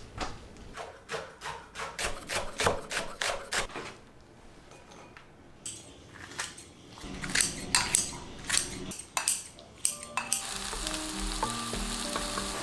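Kitchenware clinking and tapping in quick runs of sharp knocks, about three or four a second, with a quieter pause in the middle. Background music comes in about ten seconds in.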